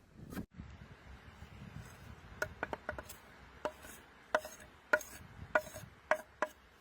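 Knife chopping on a wooden board: about nine sharp, slightly ringing knocks, roughly one every half second, starting a couple of seconds in over faint rustling.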